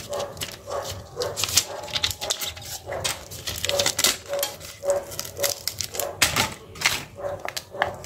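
Thin metal foil sheets and plastic film crinkling and clicking as they are handled, with brief squeaky tones here and there between the crackles.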